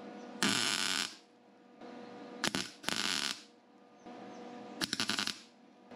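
MIG welder laying short welds onto the chipped teeth of a Sterling 10.25 axle's steel tone ring to build them back up. There are three short spells of welding, each about half a second, with a faint steady hum between them.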